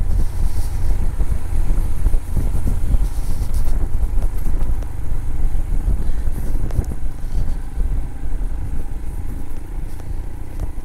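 Royal Enfield Himalayan's single-cylinder engine running as the motorcycle rides along, with a heavy, uneven rumble of wind on the microphone.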